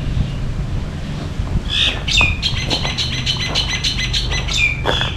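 Birds squawking and chirping in quick, repeated calls that sweep down in pitch, starting a little under two seconds in, over a steady low rumble of wind on the microphone.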